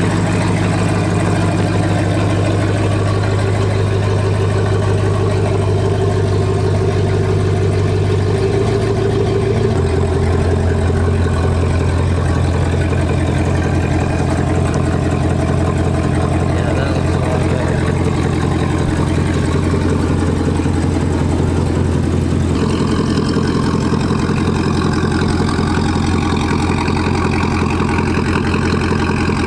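Chevy Silverado pickup engine idling steadily, its pitch dropping slightly about ten seconds in.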